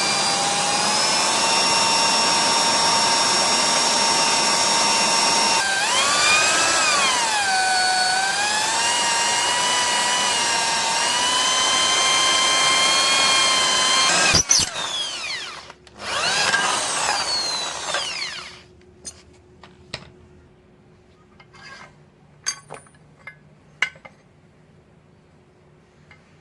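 Handheld electric power tool running with a high whine that dips and wavers in pitch as it bears on the work, then shuts off about fourteen seconds in. It runs again briefly and winds down, followed by a few light taps.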